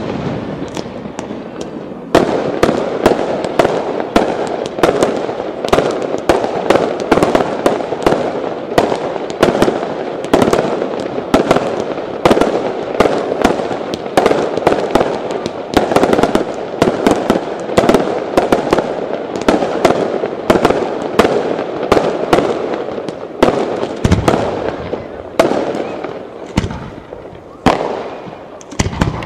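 Aerial fireworks display: dozens of sharp shell bursts and bangs in quick succession. It picks up about two seconds in and thins out over the last few seconds.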